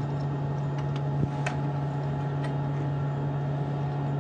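Steady hum of the International Space Station's cabin ventilation fans and equipment, with a low drone under an even whoosh of air. A few light clicks sound over it, the sharpest about a second in.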